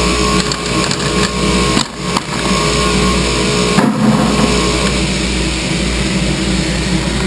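Workshop machinery running steadily: a constant motor hum and whine from the radial arm saw and its dust-collection setup, breaking off for a moment about two seconds in.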